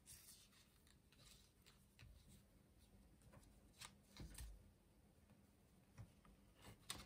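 Near silence with faint, scattered rustles and light taps of hands handling a paper card while looping cord around its closure.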